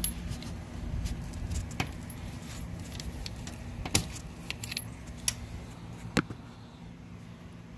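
Scattered sharp metallic clinks and clicks of a hand wrench working an air-conditioning line fitting nut loose, over a low steady hum.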